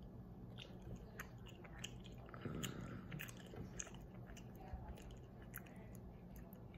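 A person biting and chewing a chewy rainbow SweeTARTS rope candy, a faint run of irregular wet mouth clicks and smacks from the sticky, hard-to-chew rope.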